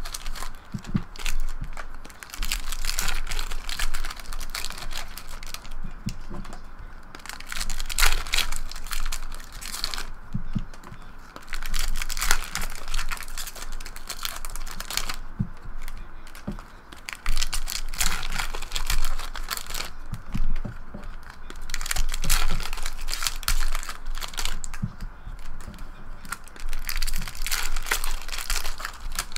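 Foil trading-card packs (2012-13 Upper Deck SP Authentic Basketball) being torn open by hand, the wrappers crinkling and ripping in repeated bursts with brief pauses between packs.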